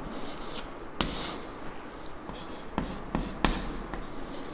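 Chalk writing on a chalkboard: scratchy strokes with sharp taps each time the chalk meets the board, one about a second in and several close together around three seconds in.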